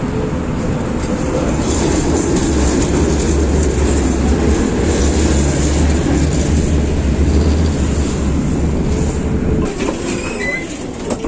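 Tatra T3 tram running along the track, heard from inside the car: a steady rumble of wheels on rails with a deep hum underneath, loudest mid-way and dying down near the end as the tram slows.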